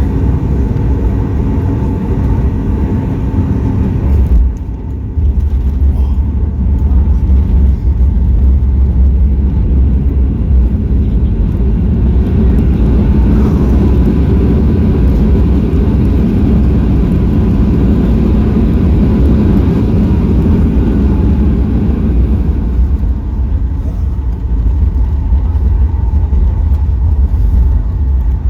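Cabin noise inside a Boeing 737 MAX 8 airliner on its arrival: a loud, steady, deep rumble of engines and airflow. It dips briefly about four seconds in, then comes back louder. A faint thin whine runs through the middle.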